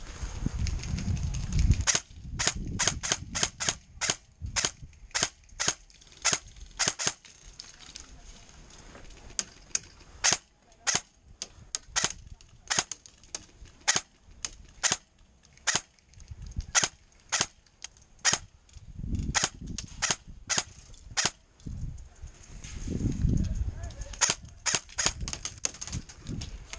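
Airsoft guns firing in semi-automatic: dozens of sharp cracks at an irregular pace, some in quick pairs, starting about two seconds in. Low rumbling swells near the start and twice later on.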